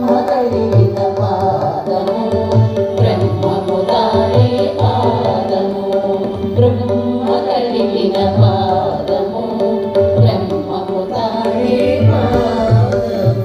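Background music: a South Indian devotional piece with tabla strokes under a steady drone and a gliding melody line.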